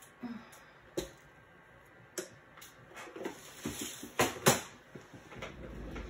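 Hands handling small jewellery-making supplies: a scatter of sharp clicks and knocks with some rustling, the two loudest knocks a little past the middle, as jump rings are fetched.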